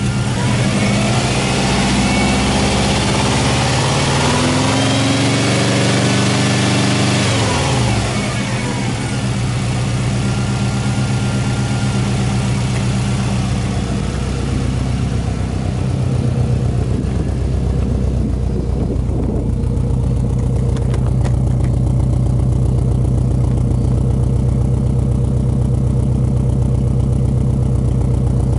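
Subaru Impreza WRX Type RA's turbocharged EJ20 flat-four engine idling steadily. It is heard first at the open engine bay and later nearer the tailpipe, growing a little louder and deeper in the second half.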